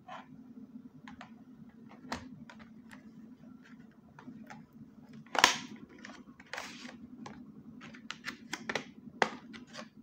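Small clicks and taps of an SSD being unpacked from its retail box and handled, with one louder knock about five and a half seconds in. A low steady hum runs underneath.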